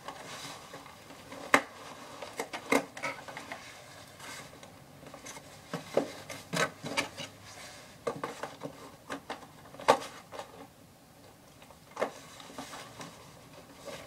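Irregular clicks, taps and rattles of hands working at the plastic cable ties and hard plastic packaging holding an RC truck in its box.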